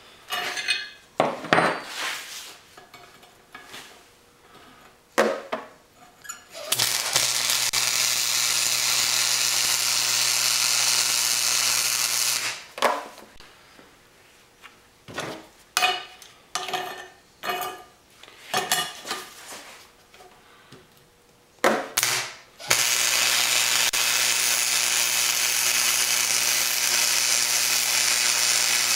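Steel parts clinking and knocking on a steel workbench, then a MIG welder's arc burning steadily with a hiss and a low electrical hum for about six seconds. More clinks and knocks follow, and about two-thirds of the way in the arc strikes again and runs to the end.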